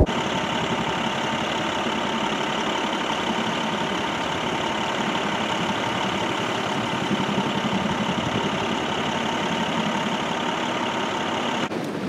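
A vehicle engine running steadily with a constant hum, cutting off abruptly near the end.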